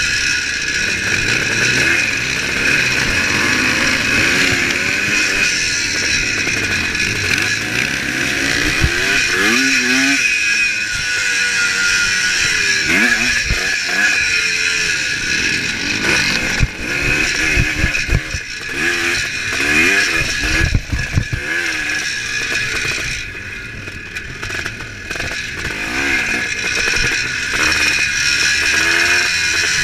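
1975 Kawasaki KX400 two-stroke single-cylinder engine revving hard, its pitch climbing and falling again and again as the rider works the throttle and gears. About two-thirds of the way through the engine backs off and goes quieter for a couple of seconds, then revs up again.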